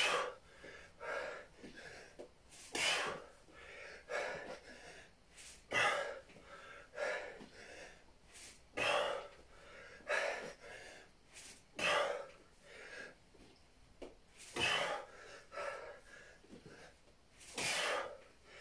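A man's sharp, forceful breaths, one about every second and a half, in time with sit-up reps: hard exercise breathing.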